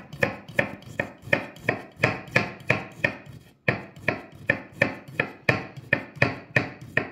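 Chef's knife slicing a raw zucchini into thin rounds on a wooden cutting board: steady knocks of the blade against the board, about three a second, with a brief pause about halfway through.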